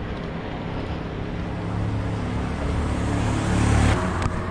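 Wind rumbling on the microphone of a camera mounted on a moving bicycle, getting louder and then dropping sharply about four seconds in.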